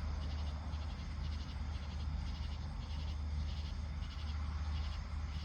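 Insects chirping in short high-pitched trills that repeat about every three-quarters of a second, over a steady low rumble.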